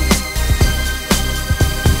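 Background music with a steady drum beat and sustained instrumental notes.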